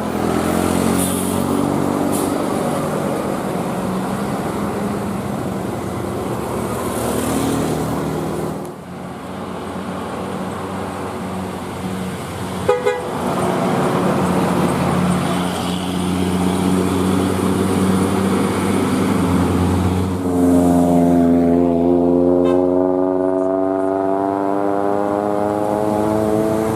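Indonesian bus 'telolet' musical air horn playing a tune in stepped notes. About twenty seconds in it gives way to one long, loud, held multi-tone blast.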